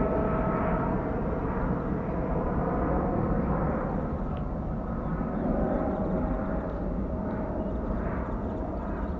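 Jet engine noise of a Boeing 777-300ER's two General Electric GE90-115B turbofans as it climbs away after takeoff: a deep, steady rumble with a faint humming tone that comes and goes, slowly fading.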